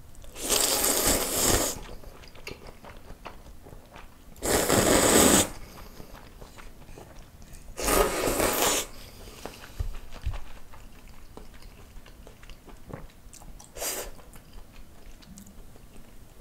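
Loud slurps of Shin Ramyun dry (non-fried) instant noodles and their broth, three of about a second each, with quiet chewing clicks between them and a shorter slurp near the end. The third slurp is broth sipped from a small wooden bowl.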